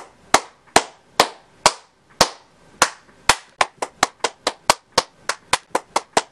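A series of sharp, loud cracks, about two a second at first, speeding up to about four or five a second around three and a half seconds in.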